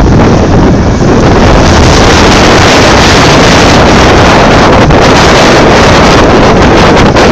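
Komatsu PC8000 hydraulic excavator working close by, its machinery noise mixed with heavy wind on the microphone into a loud, steady, unbroken noise.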